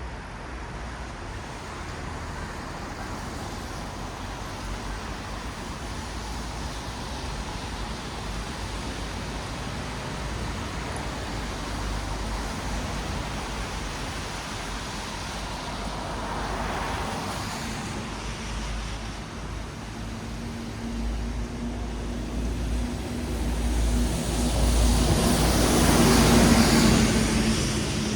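Road traffic on wet asphalt: a steady hiss of tyres on the wet road, with one vehicle swelling past about two-thirds of the way in and a louder one with a low engine hum passing near the end.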